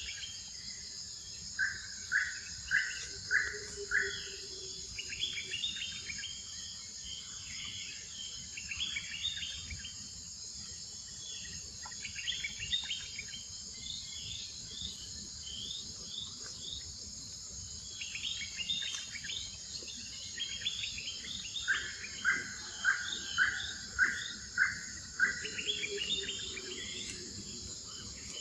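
Forest ambience: a steady, high insect drone with several birds chirping. Twice a bird gives a run of about five loud, evenly spaced notes.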